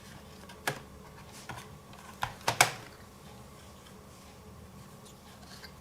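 A 2.5-inch hard drive being pulled out of a Lenovo Z50 laptop's drive bay, giving several sharp clicks and knocks of hard plastic and metal in the first three seconds. The loudest are two close together about two and a half seconds in.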